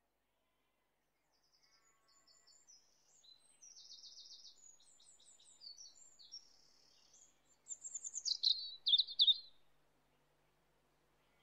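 A small songbird singing a quick, varied, high-pitched song of chirps and trills. It starts about a second and a half in, grows loudest near the end of the phrase, and stops about ten seconds in.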